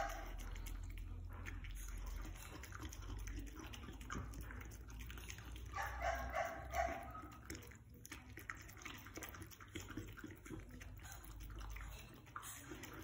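A dog eating rice from a bowl: wet chewing, lapping and clicking of its mouth in the food. Short pitched cries come near the start and again about six seconds in.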